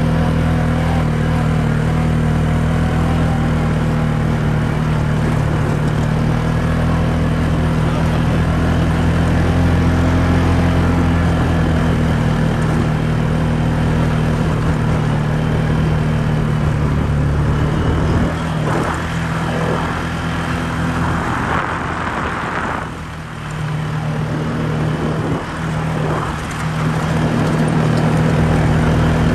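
Quad bike (ATV) engine running steadily under throttle as it drives across soft sand. About two-thirds of the way through, the engine note eases off and wavers for several seconds, then picks up steadily again near the end.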